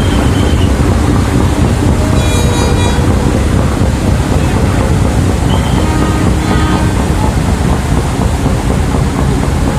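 Loud steady rumble of river passenger launch engines and churning wake water, with wind on the microphone. A brief high tone with many overtones sounds about two seconds in, and fainter ones near six seconds.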